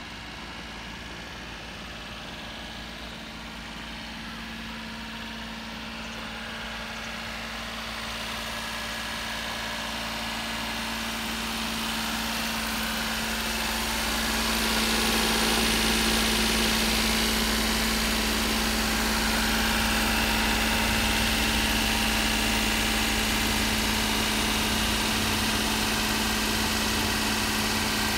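Daihatsu Hijet mini truck's 660 cc three-cylinder twin-cam engine idling steadily. It grows louder over the first fifteen seconds or so as it is heard closer, then holds even.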